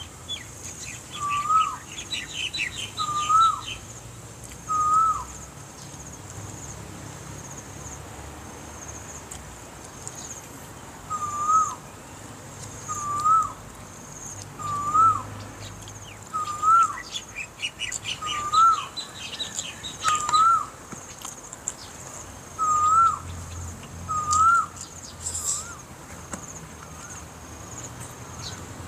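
A bird repeating a short whistled note that rises and then drops, about every two seconds, in two runs with a pause of several seconds between them. Fainter high chirps and bursts of rapid twittering from other birds sound behind it.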